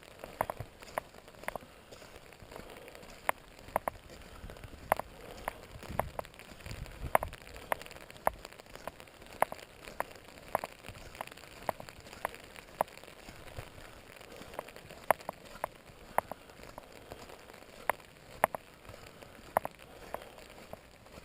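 Rain pattering on an umbrella: sharp, irregular drop taps, one to three a second, over a soft steady rain hiss.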